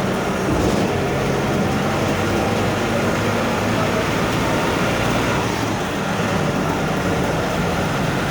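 VW 17-230 OD bus's MAN D0834 four-cylinder diesel running steadily under way, with the distinctive growl of its freshly reconditioned ZF 6S-1010 gearbox.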